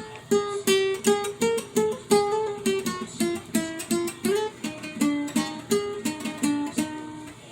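Guitar played note by note: a single-line plucked melody of about three notes a second that drifts downward in pitch, with a few notes slid into.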